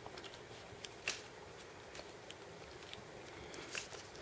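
Faint handling sounds of a black rubber watch strap and its buckle being fastened on a wrist: light rubbing with a few scattered small clicks, a little busier near the end.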